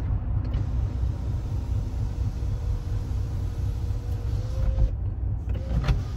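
Steady low rumble of a car's engine and tyres heard from inside the moving car, with a brief knock near the end.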